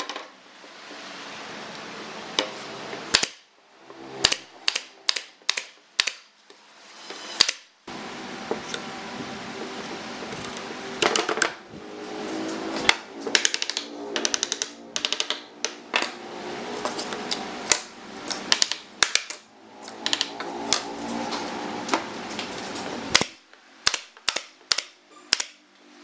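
Nail gun firing into a pine frame: sharp single shots in irregular clusters with short pauses between, and a quick run of about five shots near the end.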